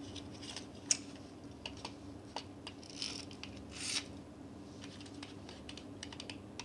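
Scattered light clicks and taps from a small die-cast metal toy car being handled, with a sharper click about a second in and two brief scrapes around three and four seconds.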